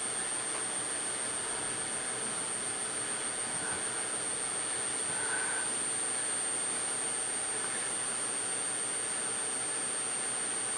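Constant high-pitched whine at the circuit's 8.75 kHz pulse frequency, from the pulse-driven transformer and bifilar coil of a water fuel cell electrolysis circuit, over a steady rushing noise.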